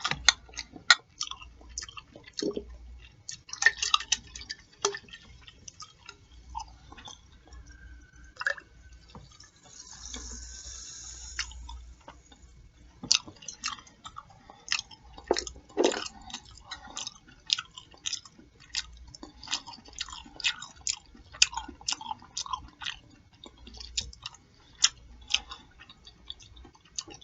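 Close-miked chewing with wet mouth clicks and lip smacking, many sharp smacks a second.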